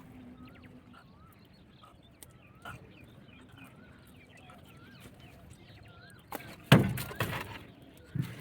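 Small birds chirping repeatedly with short, wavy calls, then a sudden loud thump about two-thirds of the way in, followed by a second or so of noisy rustling or water sounds.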